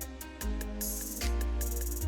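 Instrumental background music: a deep bass line that changes note every second or so under pitched instrument notes, with a quick, even ticking beat.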